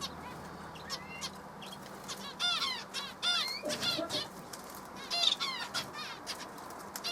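Canaries calling: a series of short, sweeping chirps, several in quick succession a few times.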